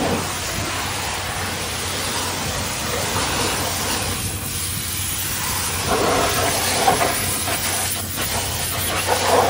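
High-pressure water jet from a pressure-washer wand hissing steadily against a truck tire, blasting off asphalt buildup, with a steady low hum underneath.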